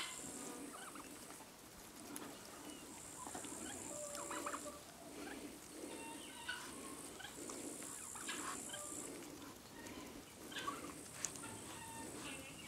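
A flock of Muscovy ducklings pecking and nibbling at a zucchini, their bills pattering softly, with scattered short, high peeps.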